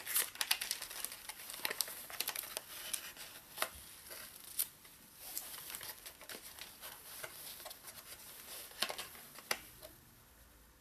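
Cardboard phone box and its paper and plastic inserts being handled and unpacked: rustling and crinkling with many small clicks and taps, thinning out near the end.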